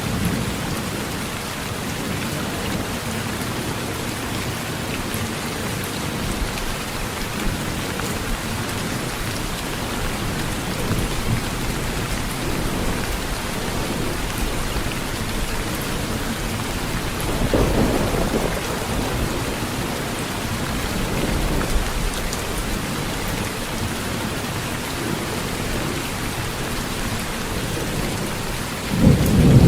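Steady heavy rain on a tin roof, with low thunder rumbles swelling about two-thirds of the way through and again at the very end.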